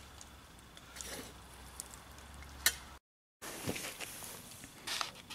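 Campfire embers crackling and hissing faintly, with a few sharp pops, one of them loud near the middle. The sound drops out briefly about three seconds in, then comes back with busier crackling and rustling.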